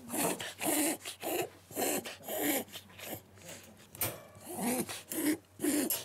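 Shiba Inu reverse sneezing: a run of short, forceful breaths, about two a second, with a brief pause around the middle.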